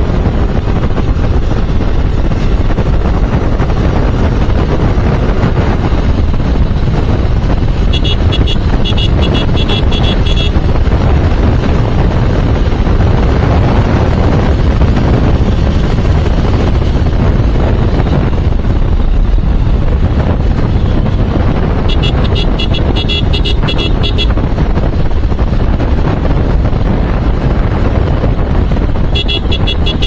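Steady wind buffeting on the microphone over a Yamaha motorcycle running at cruising speed. Three times, a third of the way in, about three-quarters in and right at the end, a horn sounds in a quick run of short beeps.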